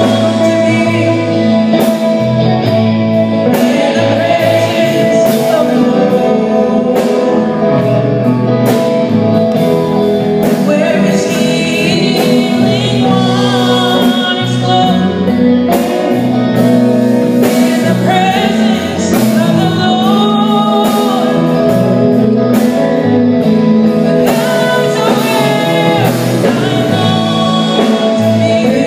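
Live gospel worship song: a woman sings a melody into a microphone over electric guitars and bass, played through a PA.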